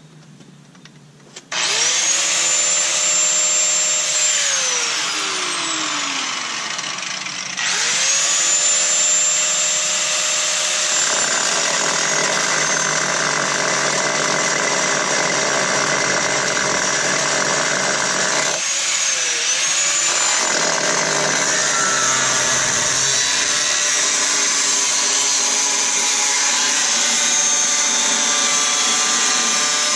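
Corded 4.5-inch angle grinder with a thin cutoff wheel spinning up about a second and a half in with a high whine, winding down, then starting again and cutting into a rusted steel truck rocker panel with a harsh steady grinding. About two-thirds of the way through it briefly slows and picks up speed again as the cut goes on.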